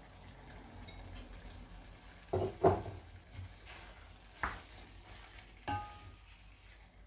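Wooden spoon stirring pork chunks in sauce in an enamelled pot over a low sizzle, with a few knocks of the spoon against the pot; the loudest comes about two and a half seconds in, and the last rings briefly.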